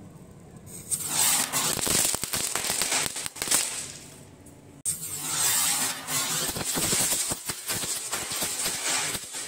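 Chit Put chatar-patar Diwali firecracker going off: a dense, rapid crackling and fizzing as its tubes spray sparks. It starts about a second in, eases off around four seconds, breaks off abruptly and then crackles again.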